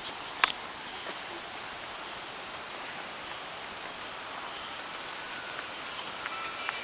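Rain forest insects droning steadily, with a thin high whine over an even hiss. One sharp click sounds about half a second in.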